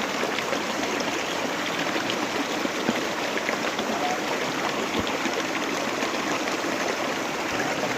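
A forest stream running steadily, with a constant rushing and small trickling splashes.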